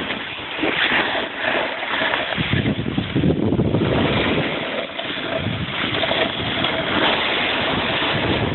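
Wind rushing over the microphone while a snowboard slides on snow, a steady noisy rush that swells and dips.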